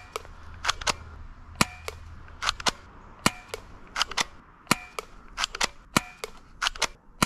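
Cheap spring-powered airsoft pistol, a silver M9 replica, cocked by hand and fired over and over: a string of sharp plastic clacks, about two a second, often in close pairs.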